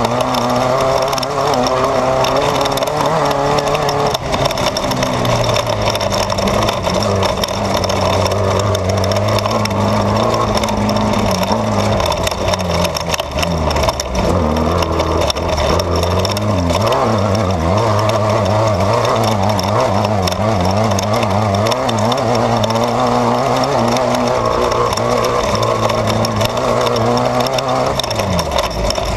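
Off-road desert race car's engine running hard, heard from inside the car, its revs rising and falling continuously over steady road noise. The engine pitch drops near the end.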